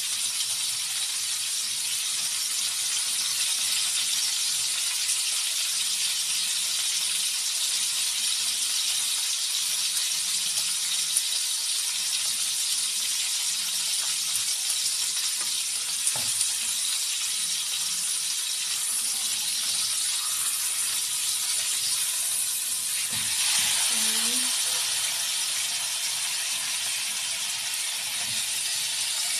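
Whole butterflied chicken frying in hot annatto oil in a wok, a steady sizzling hiss, with a couple of light knocks about halfway and two-thirds of the way through.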